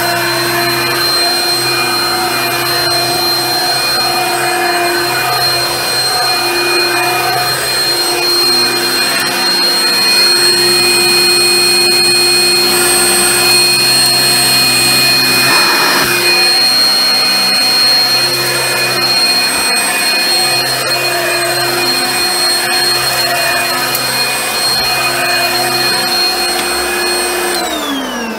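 Junior upright vacuum cleaner running as it is pushed over carpet, a steady motor whine over the rush of air. Near the end it is switched off and the whine falls away as the motor winds down.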